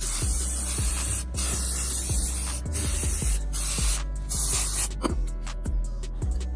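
Aerosol can of plastic trim restorer spraying onto car trim in several hissing bursts with short breaks, stopping about five seconds in.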